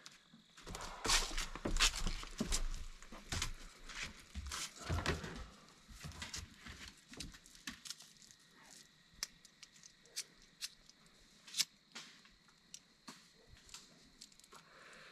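Irregular knocks and clicks, busy and fairly loud for the first several seconds, then thinning out to scattered single sharp ticks.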